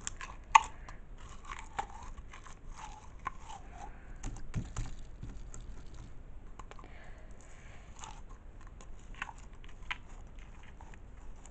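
Clear slime being poked and pulled from its plastic container: small sticky squelches and irregular clicks, with one sharper click about half a second in.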